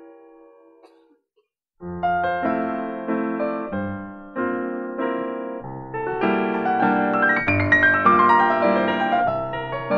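Yamaha grand piano played solo: a held chord dies away into a brief silence, then the playing resumes with separate chords about twice a second, growing fuller and louder in the second half.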